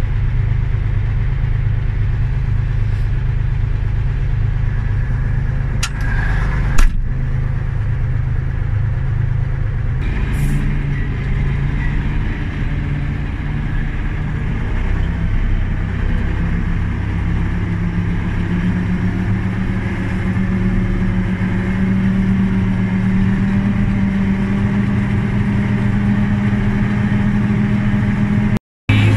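Tractor diesel engine running steadily under way, with one sharp knock about seven seconds in and the engine note slowly rising over the second half.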